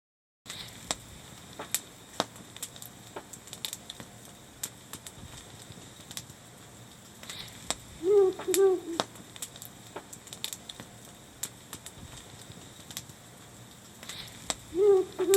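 Wood campfire crackling, with scattered sharp pops. Twice, about eight seconds in and again near the end, a short call of two or three quick arched notes sounds over it.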